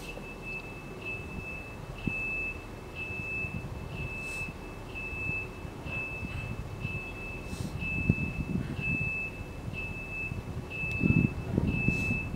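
High-pitched electronic beeper sounding short steady beeps about twice a second, over a low rumble that swells twice in the second half.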